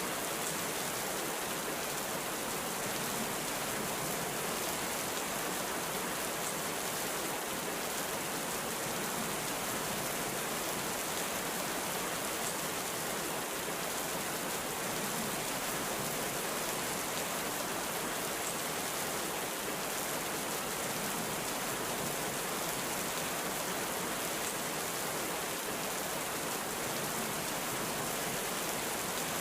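Heavy rain falling steadily, an even hiss with faint drop patters and no thunder.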